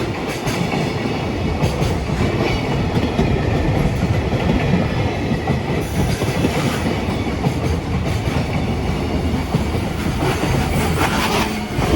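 Freight train of loaded Koki container wagons rolling past close by: a steady heavy rumble with the wheels clattering over the rail joints.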